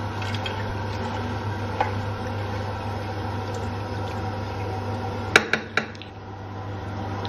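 Toilet brush scrubbing inside a porcelain toilet bowl, with three sharp knocks of the brush against the bowl a little over five seconds in, over a steady low hum.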